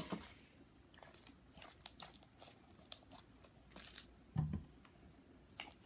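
Slime-making supplies being handled and moved about on a tabletop: scattered light clicks and crinkly rustles, with a soft thump about four and a half seconds in.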